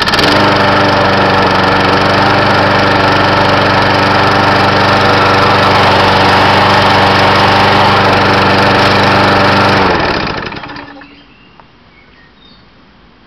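Scotts walk-behind lawn mower's small single-cylinder engine running steadily and loudly, then shutting off about ten seconds in and spinning down to a stop.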